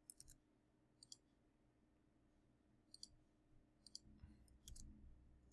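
Near silence with a handful of faint, sharp clicks scattered through it, from computer input: mouse and keyboard.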